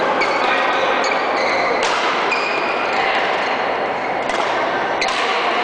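Badminton rackets striking shuttlecocks in a large sports hall: about half a dozen sharp hits, several followed by a brief high ringing tone, over a steady reverberant hall din.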